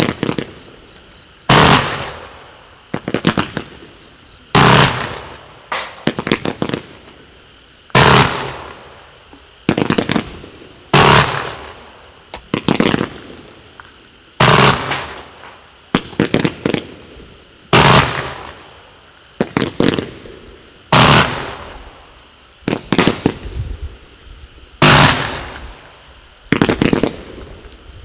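A 100-shot low-noise firework cake with gold comets and gold waterfalls firing in pulses: roughly every three seconds a sharp bang that fades off over about a second, with a quick cluster of smaller pops in between.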